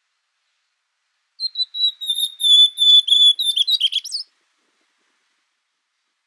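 Ultramarine grosbeak (azulão) singing one song of about three seconds, starting about a second and a half in: a few clear whistled notes that run into a quick warbled flourish at the end.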